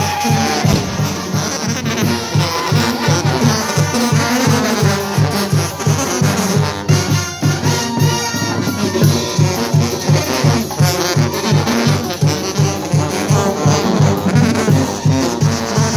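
Oaxacan brass band (banda) playing a lively tune, the sousaphones carrying a steady bass beat of about three pulses a second under the higher brass.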